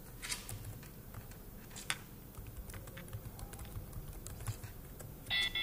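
Typing on a computer keyboard: a scattering of separate key clicks. Near the end a louder, steady high electronic tone starts.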